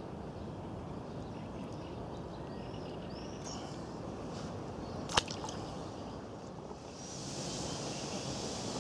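Outdoor ambience by a pond: a steady low rumble with a few faint bird chirps, one sharp click a little after five seconds in, then a steady high hiss from about seven seconds.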